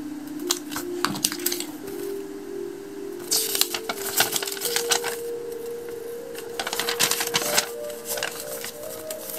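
A folded paper instruction leaflet crackling and rustling as it is handled and unfolded, in three short bursts. Under it runs background music: a simple melody of held notes that steps slowly upward.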